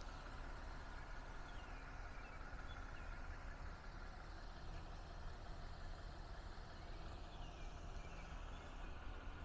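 Faint outdoor background: a steady low rumble with a few short, faint high chirps.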